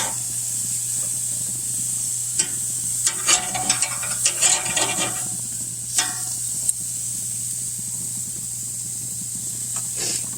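Chicken sizzling steadily on a hot grill, with a few bursts of a utensil scraping and rasping against the grate, clustered about three to five seconds in, once more around six seconds and again near the end.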